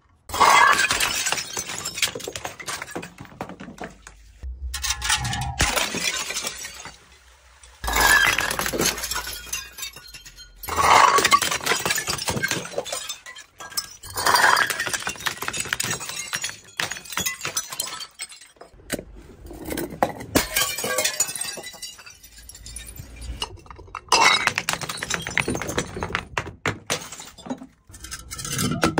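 Liquid-filled glass bottles and jars tumbling down concrete stairs and smashing, one after another, about seven times. Each break is a loud crash followed by shards and the neck clinking down the steps.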